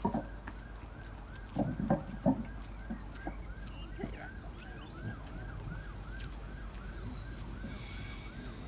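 A siren sounding a fast rising-and-falling yelp, about three cycles a second, with a few low knocks early on.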